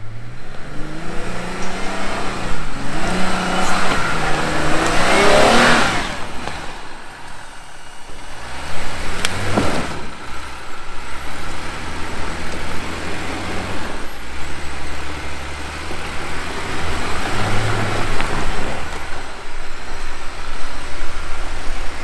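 Jeep engine revving under load while crawling over an off-road obstacle, its pitch climbing and falling with the throttle. A single sharp knock comes about nine seconds in.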